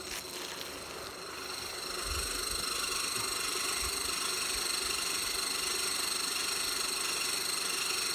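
A steady machine drone with a high whine, growing louder about two seconds in and then holding level.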